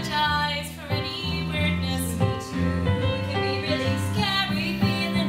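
A song from a stage musical: a woman singing over instrumental accompaniment with a steady bass line.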